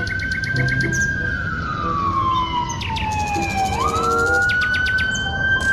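A siren-like wailing tone, the loudest sound here. It holds high, falls slowly over about three seconds, then jumps back up and climbs again. Under it are light background music and fast high chirps.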